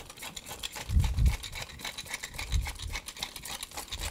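Rapid, irregular crackling and clicking at a hot pan of mushroom sauce on the hob, with soft low thumps about a second in and again past halfway.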